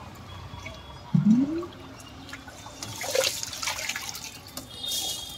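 Water sloshing, pouring and dripping as soaked rice is scooped from a pot of water with a metal bucket and tipped into a perforated aluminium colander to drain, with splashes about three seconds in and a hissing pour near the end. A short rising tone about a second in is the loudest moment.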